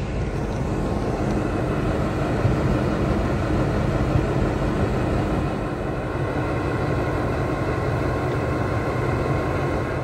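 Diesel train running: a steady rumble with a constant engine drone.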